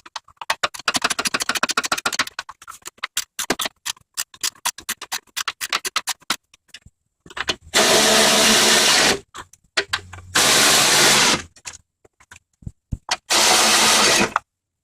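Rapid ratchet clicking as the starter's mounting bolts are run in, then three bursts of about a second each from a power impact driver hammering the bolts tight.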